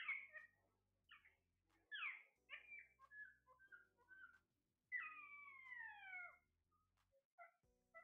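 Ring-necked parakeets calling in short chirps and squawks. About five seconds in there is one long, falling whistled call.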